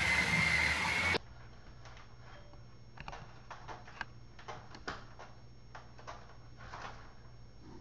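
A toy truck's electric motor whines steadily, rising slightly in pitch, then cuts off suddenly about a second in. After that it is quiet, with scattered light clicks and scratches of a cat's claws catching in the mesh of a screen door as it climbs.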